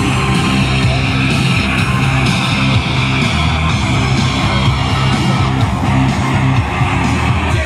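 Loud rock music led by guitar, playing steadily.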